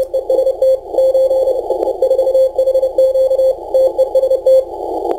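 Morse code (CW) signal from a Kenwood R-1000 shortwave receiver on the 40-metre band, a single keyed tone sent in dots and dashes, heard through a Timewave DSP-9+ audio filter set to 500 Hz with noise reduction off. The tone sits in a steady hiss of band noise squeezed into a narrow pitch range by the filter. The keying stops near the end, leaving only the filtered noise.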